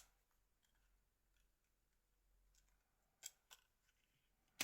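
Near silence, broken by a few faint, sharp clicks of small phone parts being handled: two close together about three seconds in and one more at the end.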